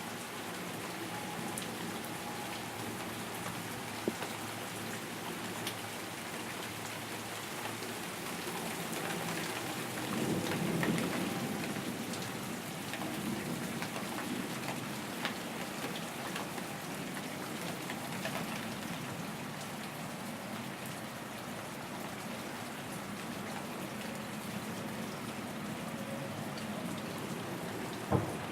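Steady rain falling, with a few sharp drops striking close by now and then. About ten seconds in, a low rumble of thunder swells and fades.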